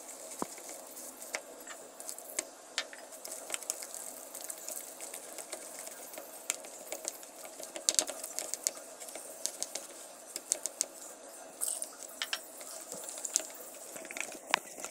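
Wire whisk stirring a thick, wet dosa batter of gram flour and rice flour in a plastic bowl, with many irregular clicks and taps of the wires against the bowl.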